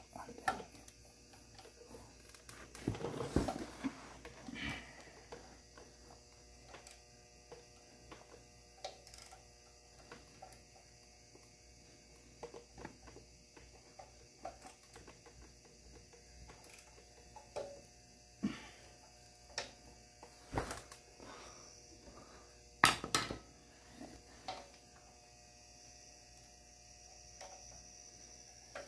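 Scattered clinks and knocks of hand tools and metal parts being worked around a tractor engine, with a louder clatter about three seconds in and a sharp knock about twenty-three seconds in.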